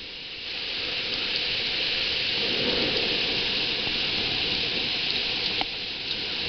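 Hail falling hard in a steady, dense rush that swells about half a second in, with one sharp click near the end.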